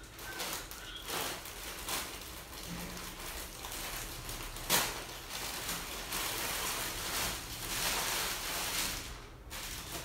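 Packaging wrapper rustling and crinkling as it is pulled open by hand, with one sharp click nearly five seconds in.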